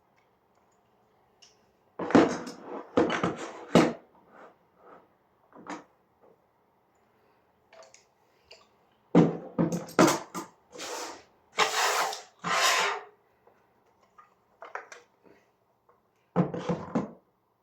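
Metal door closers being handled and set down on a table: irregular knocks and clunks in several clusters, with a few longer, hissy scrapes about two-thirds of the way in.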